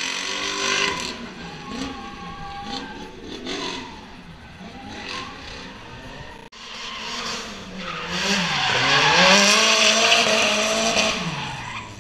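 A drift car's engine revving up and down as the car slides, its tyres squealing. The engine and tyre noise swell to their loudest about three-quarters of the way through, then fade.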